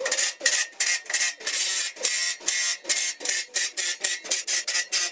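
Ratchet wrench worked back and forth in quick rasping strokes, about four to five a second, while bolts on the sawmill bed frame are tightened down.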